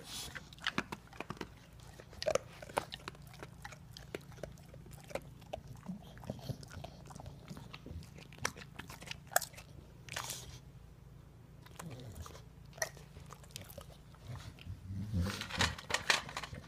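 English bulldog crunching and chewing food in irregular bursts, busiest again near the end.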